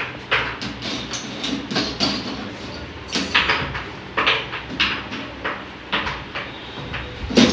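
Pegs being set into the holes of a pegboard and picked from a plastic basket: a quick, irregular series of knocks and clatters, a few each second, with one louder knock near the end.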